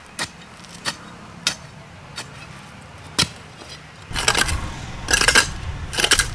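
Iron digging bar struck into hard, dry earth: five sharp separate jabs over the first three seconds or so. About four seconds in it gives way to louder, rough scraping and scooping of loosened soil with a low rumble under it.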